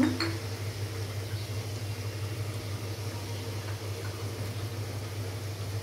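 A steady low hum under a faint, even hiss. The oil with whole spice seeds in the iron kadai is heating quietly, with no loud crackling or sizzle.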